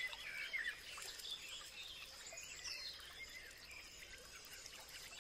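Small birds chirping and twittering, a scatter of short high calls that is busiest in the first second or so and thins out afterwards.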